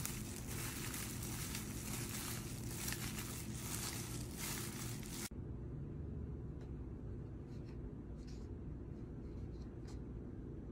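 Thin plastic food-prep glove crinkling and vegetables squishing as a hand tosses a bowl of dressed chives and onion, over a low steady hum. About five seconds in the crinkling cuts off, leaving the hum and a few faint clicks.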